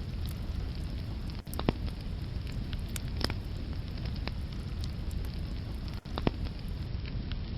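Wood fire burning in a fireplace: a steady low rumble of flames with scattered sharp crackles and pops, three of them louder than the rest.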